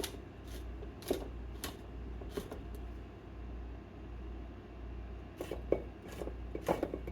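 Pepper mill being twisted to grind peppercorns, making short crunching clicks: a few spaced ones at first, then a quicker run near the end.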